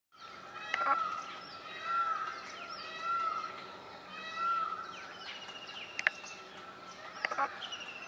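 Several wild birds calling in a tree canopy. One repeats a short arched note about once a second over a steady high background tone, while other chirps and whistles sound higher up. A few sharp clicks come about a second in and twice near the end.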